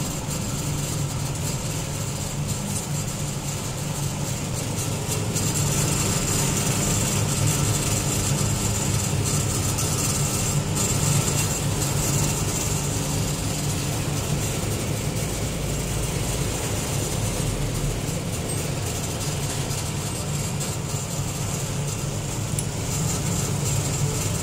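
Self-cooking rice noodle extruder running steadily: a constant low mechanical hum with a high hiss over it as the noodles feed out.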